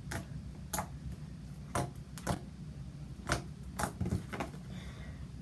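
Purple slime being poked and squeezed by hand, giving small sharp clicks and pops, about seven of them at irregular intervals, over a low steady hum.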